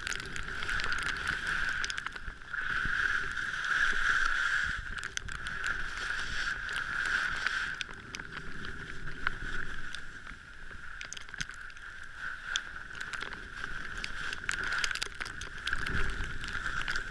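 Steady running noise of a car driving on a snowy road, with a constant mid-pitched hum and scattered small clicks and crackles.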